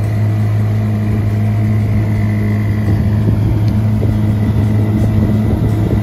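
A drift boat's outboard motor running at a steady cruising speed, a constant low hum, with water rushing past the hull and wake.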